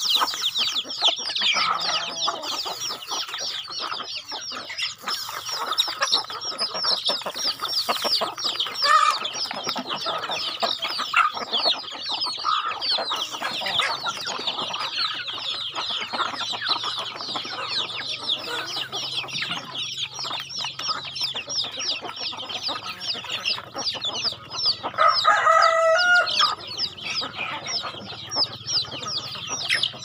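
A flock of chicks peeping in a constant high chorus of short falling cheeps, with hens clucking as they feed at a grain trough. A rooster crows once, about five seconds before the end.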